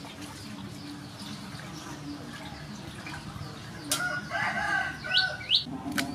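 Birds calling in the background: a drawn-out, wavering crow-like call about four seconds in, followed by two short rising chirps, over a faint low hum and light water sounds from fish being rinsed in a metal basin. A sharp click comes just before the call, and another near the end.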